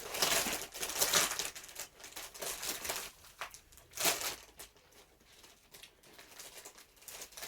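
Plastic potato chip bag being handled and torn open, crinkling and crackling loudly for about the first second, then in a few shorter crinkles around three and four seconds in.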